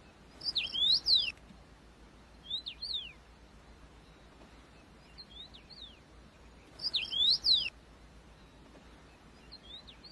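A songbird singing short phrases of quick rising and falling whistled notes, repeated every few seconds: two loud phrases, about a second and seven seconds in, with fainter ones between them.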